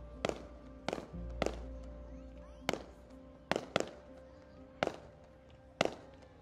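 Aerial fireworks shells bursting: about eight sharp bangs at irregular intervals, each with a short echoing tail, over background music.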